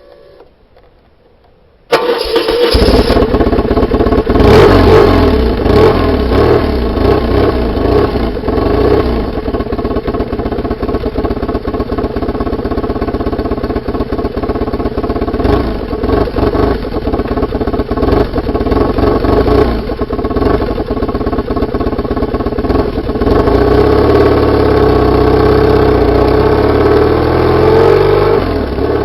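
BMW R850R's flat-twin boxer engine and exhaust running, heard through a microphone mounted just above the exhaust. The loud engine sound starts abruptly about two seconds in, and the engine note rises near the end.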